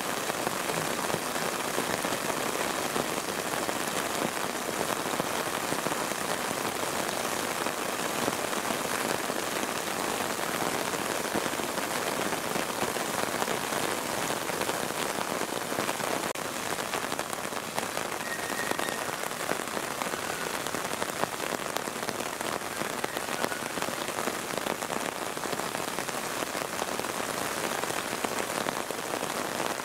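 Heavy, steady rainfall.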